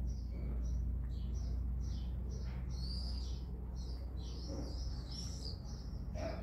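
A small bird chirping over and over, a short high chirp about two or three times a second, over a steady low rumble.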